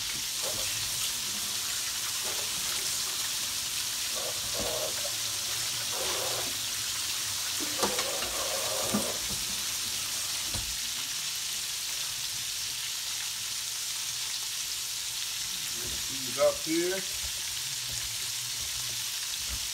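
Breaded chicken gizzards sizzling steadily as they fry in hot oil in a cast-iron skillet. A few brief louder sounds break in, the loudest about sixteen seconds in.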